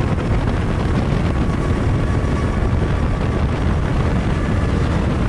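Go-kart engine running steadily at high revs under full throttle, the kart gaining a little speed, with wind rushing over the onboard microphone.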